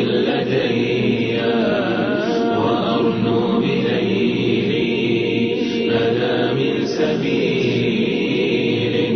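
Music: layered voices chanting a steady, sustained drone with no clear words.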